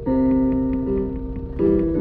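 Digital piano playing chords: one struck at the start and another about a second and a half in, each held and slowly fading.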